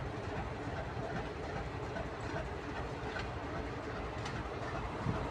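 TEM2 diesel shunting locomotive moving with wagons during shunting, a steady rumble with a few faint clicks of wheels over the rails.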